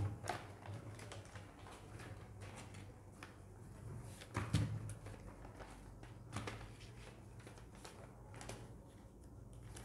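Ballot envelopes and papers being handled on a table: scattered light rustles and small knocks, the clearest cluster about halfway through, over a faint low hum.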